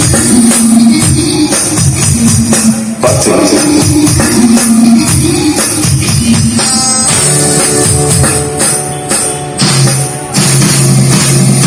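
Music with a drum kit, changing section a few times.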